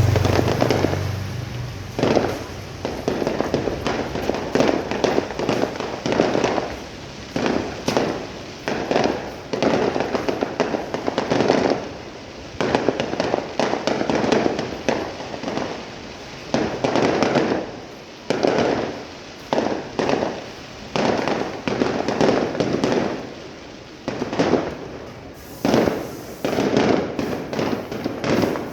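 Fireworks display: aerial shells bursting one after another, sharp bangs every second or two, each trailing off into a rolling, echoing tail.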